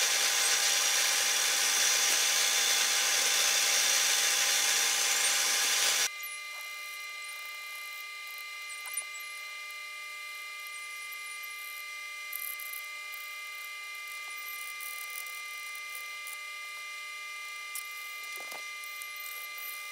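Drill press running as it drills holes through a Kydex sheet over a wood backing block: a loud, steady machine sound that cuts off suddenly about six seconds in. A much quieter steady hum with a few light taps follows.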